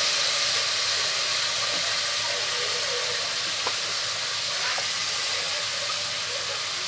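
Chopped tomatoes just tipped into a pan of hot oil with fried garlic and vinegar, sizzling with a steady hiss that eases off gradually. A couple of faint ticks can be heard partway through.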